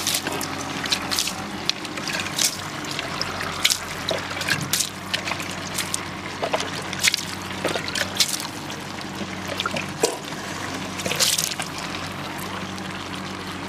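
Flat metal spatula stirring and scraping a big metal pot of crabs in wet masala, moistened with sprinkled water so the crabs cook through. Irregular sharp scrapes and clinks sound over a steady watery background.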